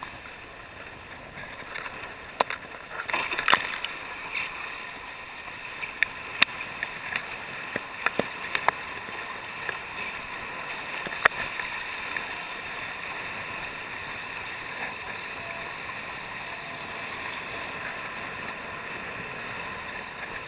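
Steady rushing hiss of water and spray streaming past the hulls of a Nacra 580 sailing catamaran at speed. Several sharp knocks and slaps come in the first half, then the rush goes on evenly.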